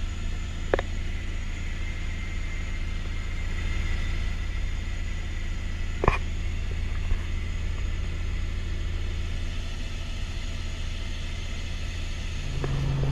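Helicopter engine and rotor heard from inside the cabin: a steady low drone, with a few sharp clicks, the loudest about six seconds in. Near the end a louder, steady hum comes in.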